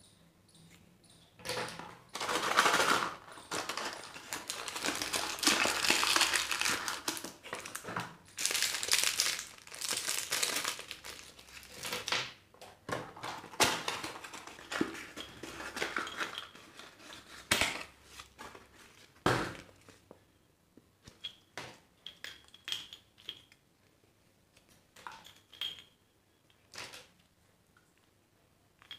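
Small cardboard mystery box being opened and its contents unwrapped by hand: dense rustling and crinkling of paper and plastic packaging for most of the first two-thirds, then scattered light clicks and taps as small plastic toys are handled.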